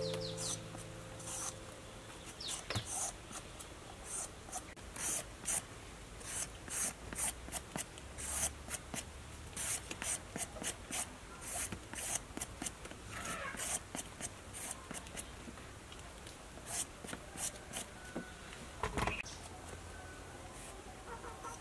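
Vegetable peeler scraping the skin off a sponge gourd in quick, repeated strokes, about two to three a second, followed by a single knock near the end.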